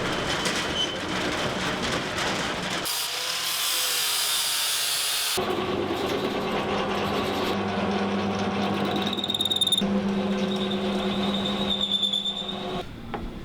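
Workshop power tools running, in short edited pieces: a harsh noisy stretch, then a steady motor hum with a high whine that comes and goes twice in the second half.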